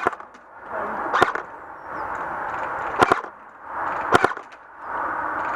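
Airsoft gun firing single shots: five sharp cracks, the last two close together. A steady rattling noise, likely other airsoft fire, fills the gaps.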